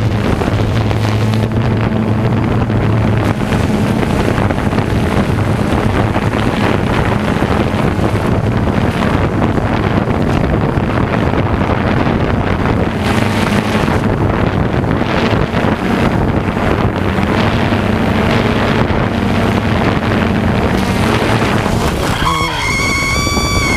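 DJI Phantom 2 Vision+ quadcopter's motors and propellers running with a steady low hum under heavy wind rush. About 22 seconds in, a higher whine comes in over it and rises slightly as the drone comes down to a person reaching up for it.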